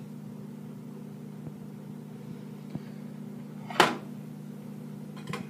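Steady low hum, with one sharp clink of a metal utensil against the stainless steel frying pan a little under four seconds in, then a few lighter clicks near the end.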